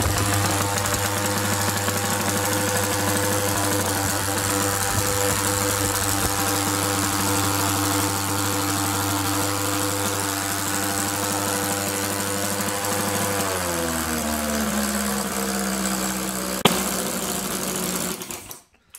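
Scale model V8 engine driving a wooden propeller, running at a steady speed. About two-thirds of the way through it slows with a falling pitch and stops near the end, with one sharp click shortly before it dies.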